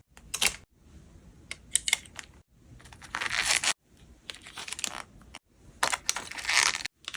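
Toy packaging being handled: plastic and paper crinkling and tearing in short bursts, with clicks, and two longer rustles about three and six seconds in.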